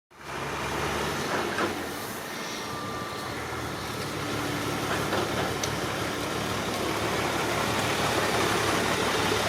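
Excavator engine running steadily, with a few faint clanks over it.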